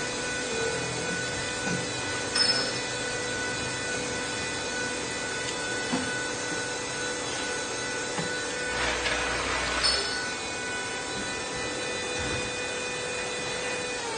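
CNC lathe running: a steady whine with a harsher rasping stretch of about a second past the middle and a couple of sharp clicks. At the very end the whine falls in pitch as the machine winds down.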